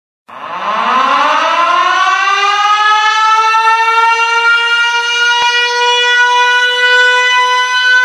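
Rögle BK's arena goal horn sounding: a siren-like horn that winds up in pitch over the first two seconds or so, then holds one loud, steady tone.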